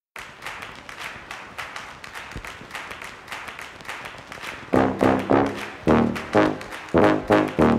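Intro music starting softly with a quick rhythmic pulse, then loud brass stabs coming in a steady rhythm about five seconds in.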